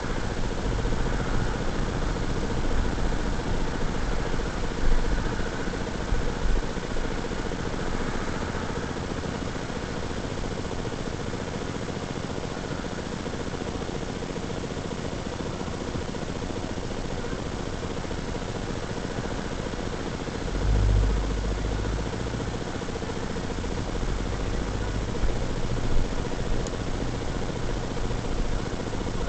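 Car interior driving noise picked up by a dashcam: steady engine running and tyre hiss on a wet road, with low rumbles in the first few seconds and again about two-thirds of the way through.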